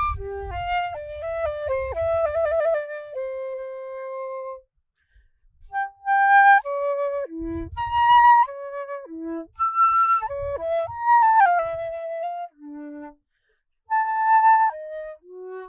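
A flute playing a solo melody of short and held notes, with a quick trill about two seconds in and a long low note held just after. It breaks off briefly about five seconds in, then carries on.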